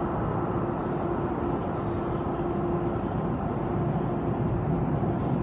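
Steady low rumble with a faint steady hum in an underground subway station, getting slightly louder near the end.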